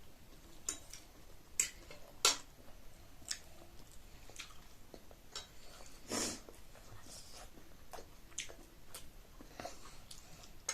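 Mouth sounds of eating chow mein noodles: chewing with scattered short wet clicks and smacks, and one louder, longer noisy sound about six seconds in.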